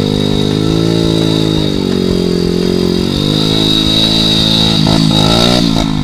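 Dirt bike engine revving under load, its pitch rising and falling unevenly, as the bike is worked out of a deep mud rut.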